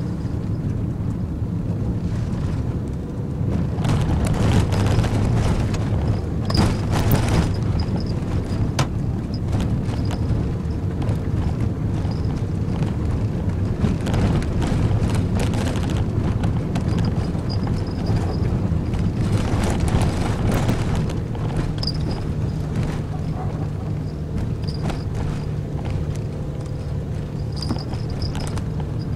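Inside the cabin of a Nissan NV200 van driving a narrow, rough road: a steady low engine and tyre rumble, with spells of knocking and rattling several times as it goes over the rough surface.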